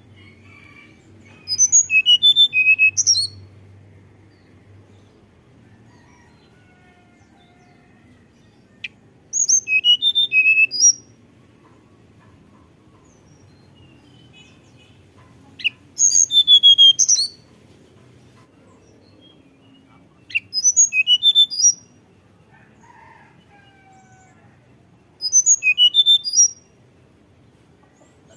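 Hill blue flycatcher singing: five short phrases of rapid, high, sweet notes, each lasting a second or two and spaced several seconds apart.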